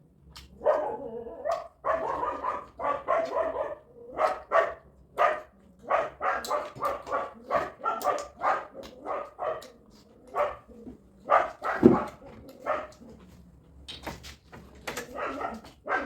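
A dog barking and yipping over and over in short quick bursts, with one loud bark about twelve seconds in.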